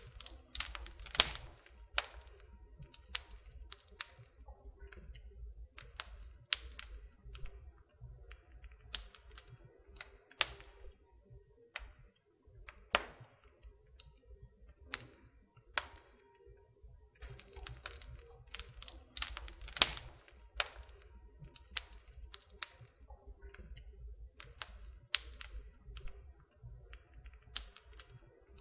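Campfire crackling: irregular sharp pops and snaps, a few much louder than the rest, over a low steady rumble.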